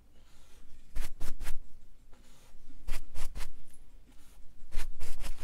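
Bristle brush dragged down over stretched canvas in short, scratchy strokes, pulling wet oil paint into reflections, in three quick clusters about two seconds apart.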